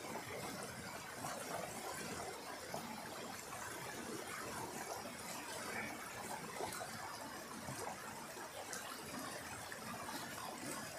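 Forest stream rushing and splashing over rocks in a small cascade, a steady watery hiss.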